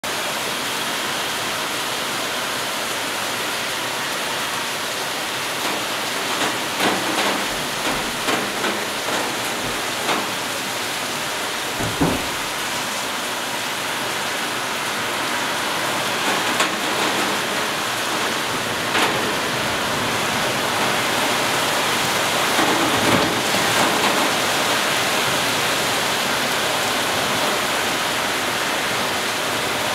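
Heavy thunderstorm rain pouring steadily, a little heavier in the second half. Between about 6 and 24 seconds in come a series of sharp taps and knocks, the sharpest about 12 seconds in.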